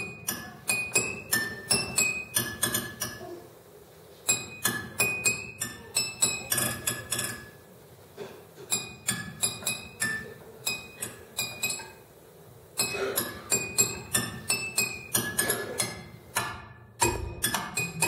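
Ukulele played with a pair of chopsticks, one wedged under the strings: quick, rhythmic sharp strikes, each with a short high ringing note, in phrases of about three seconds separated by brief pauses.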